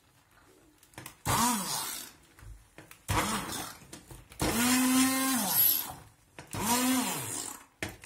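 Handheld immersion blender puréeing boiled carrot and potato soup in a stainless-steel pot, run in four short bursts after about a second of quiet. Each burst's motor pitch rises as it spins up and falls as it winds down.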